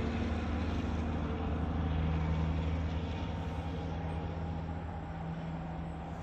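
Tractor-trailer truck driving past on the road beyond the field: a steady low engine drone with tyre noise, loudest about two seconds in and then slowly fading.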